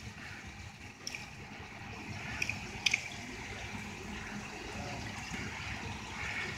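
Swimming-pool water lapping and trickling, with a few light clicks a second or so in and again around two and a half to three seconds in.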